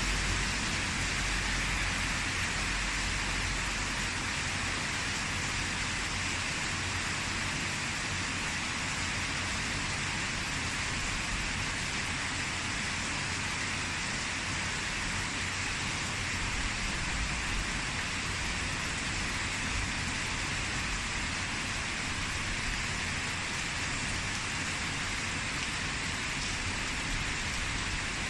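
Rain falling steadily: an even, continuous hiss with a low rumble underneath.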